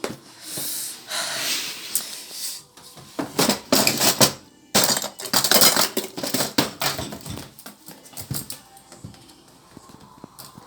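Packaging being handled and pulled open: a run of rustling, scraping noises, heaviest in the middle and tailing off over the last few seconds.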